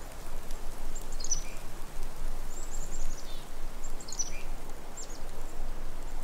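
Small birds chirping: several short, high phrases that fall in pitch, over a steady hiss of outdoor background noise.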